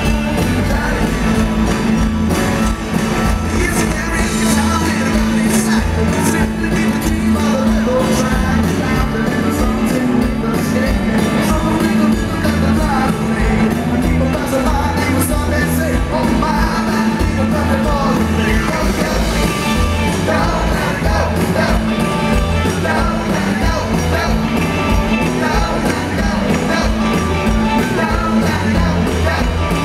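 Live rock and roll band playing at full volume, with electric guitar, drums and keyboards under a male lead vocal.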